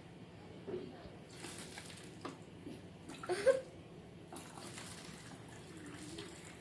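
Vinegar pouring from a plastic gallon jug into a plastic bottle: liquid trickling and gurgling into the bottle, with a louder short sound about halfway through.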